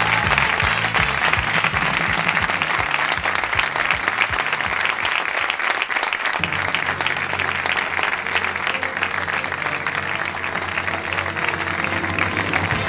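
Studio audience applauding steadily over the show's theme music, with a bass line that moves from quick repeated notes to long held notes about six seconds in.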